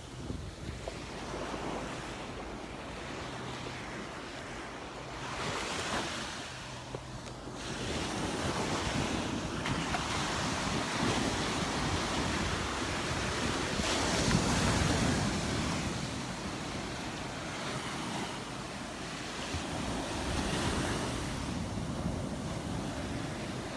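Surf breaking and washing up on a Gulf beach, swelling louder every several seconds, with wind rumbling on the microphone.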